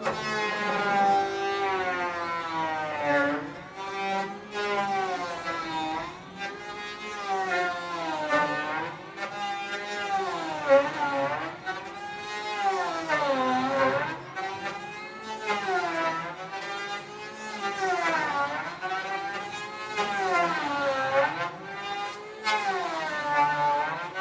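Electric planer running with a high whine whose pitch repeatedly sags and climbs back, about every two to two and a half seconds.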